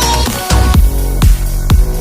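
Background electronic dance music with a heavy beat: deep bass kicks that drop in pitch, about two a second, coming in about half a second in.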